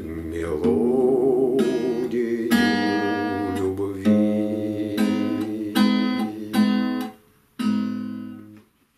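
Acoustic guitar playing a song's closing chords. A sung note held with vibrato carries over the guitar for the first couple of seconds. Then come about six strummed chords, each struck and left to ring, and the last dies away near the end.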